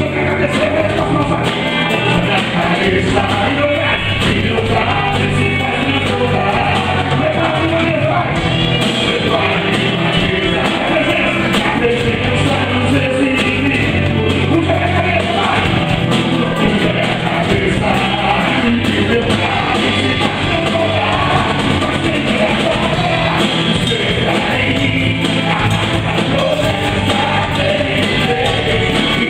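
Live worship band playing a song with singing, bass, guitars and drums, in a large hall.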